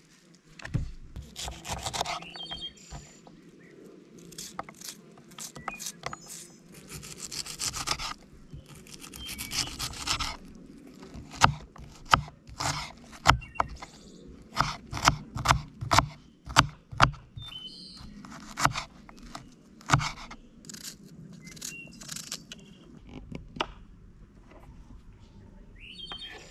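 Food preparation with utensils: scraping and rubbing, then a run of sharp knocks about every half second in the middle.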